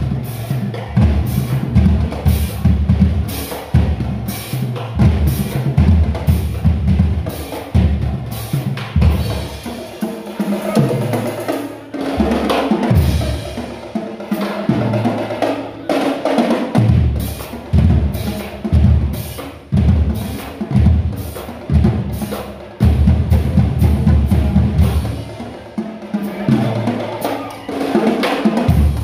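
High school marching band drumline playing a steady, loud drum beat: bass drums hitting low with fast snare and cymbal strikes over them.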